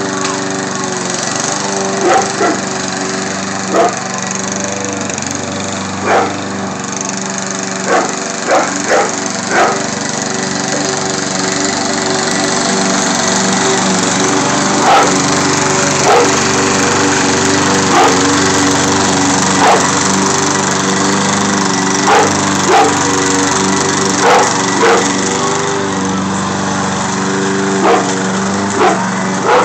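Walk-behind gas lawn mower engine running steadily while a large dog barks at it in short single woofs, about twenty times at irregular intervals, in bunches around two, eight to ten, and fifteen to twenty-five seconds in.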